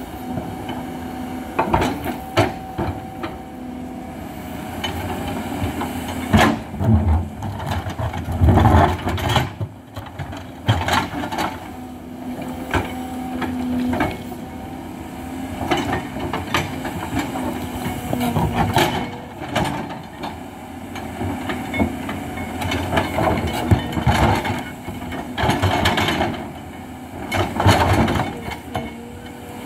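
Hidromek HMK 220LC hydraulic excavator's diesel engine running steadily under load, with irregular knocks and scrapes from the bucket digging rock and soil.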